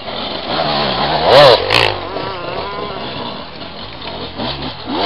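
Enduro motorcycle engine revving hard on a steep dirt climb, the revs rising and falling. The loudest surges come twice about one and a half seconds in.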